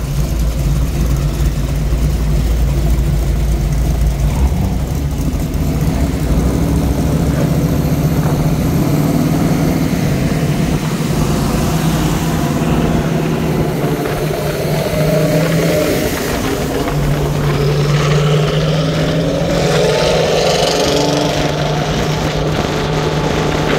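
Car engines running in slow traffic, led by the V8 of a classic Chevrolet Camaro SS alongside. A deep low rumble stands out for the first few seconds, then gives way to a steadier engine drone.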